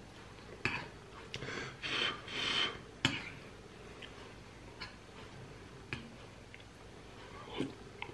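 Metal spoon clinking against a glass bowl of bean soup, a handful of sharp single clinks spread apart, with a short run of soft mouth noises of eating hot soup from the spoon between the first clinks.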